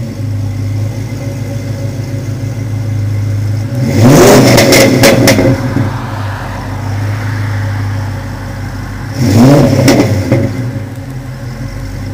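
2004 Pontiac GTO's LS1 V8 breathing through long-tube headers, an off-road X-pipe and a Flowmaster cat-back exhaust. It idles steadily and is revved twice: once about four seconds in, rising and holding for a second or so, and again, more briefly, about nine seconds in, each time dropping back to idle.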